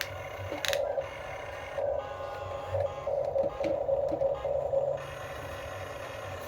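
Small electric motors and plastic gearboxes of a radio-controlled toy construction vehicle whining in short repeated spurts, with a sharp click just under a second in.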